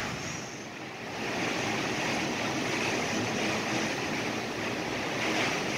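Storm wind and driven rain from a waterspout lashing the house: a steady rushing noise heard from indoors.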